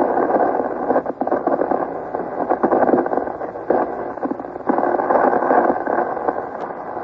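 Crackling radio static with a sputtering texture, a sound effect for a broadcast link being put through to a distant pickup. It jumps louder about four and a half seconds in.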